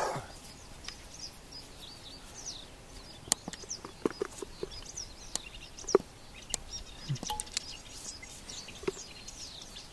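Small birds chirping and singing on and off, with a few sharp clicks and knocks scattered among them, the loudest about three and six seconds in.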